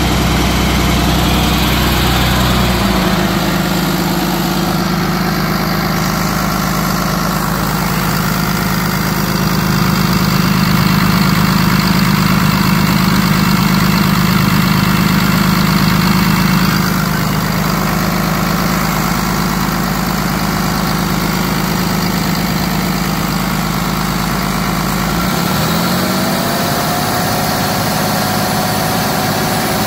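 Cummins ISB 6.7 inline-six turbo diesel running steadily at idle. A rising whine joins in near the end.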